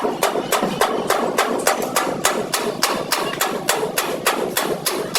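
Steady, rapid hammering, about five even blows a second.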